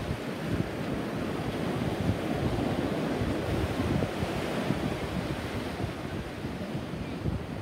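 Ocean surf washing onto the beach, a steady rush, with wind buffeting the microphone.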